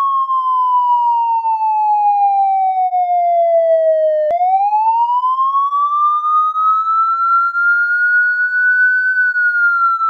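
Police siren in a slow wail: one tone glides down for about four seconds, a sharp click, then it climbs again for about five seconds and begins to fall near the end.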